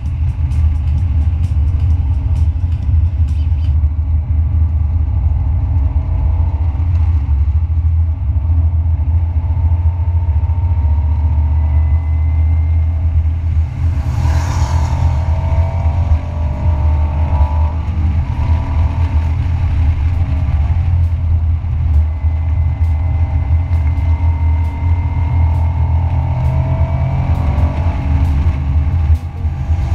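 1991 Honda NSX's mid-mounted 3.0-litre V6 heard from inside the cabin at track speed, its note rising and falling through the corners over heavy road and wind rumble. A brief hiss comes about halfway through.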